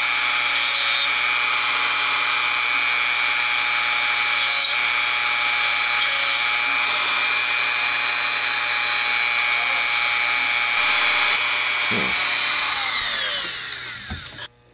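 Dremel Moto-Tool rotary tool with a small grinding stone running at a steady high whine while it smooths the edges of drilled mounting holes in a rimless eyeglass lens. Near the end it is switched off, and its pitch falls as the motor spins down to a stop.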